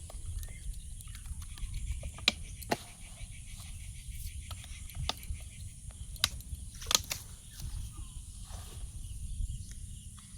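Outdoor ambience: a steady high insect drone over low rumbling noise, with a handful of sharp clicks, the loudest about seven seconds in.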